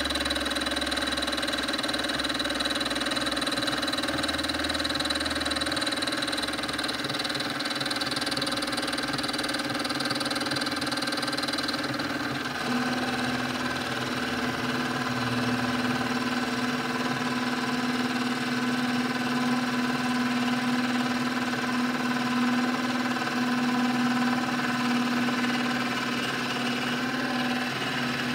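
Benchtop micro milling machine running, its dovetail cutter milling a metal block as the table is fed by handwheel: a steady motor and spindle whine made of several tones, whose pitch balance shifts about twelve seconds in, the high tone fading and a lower one growing stronger.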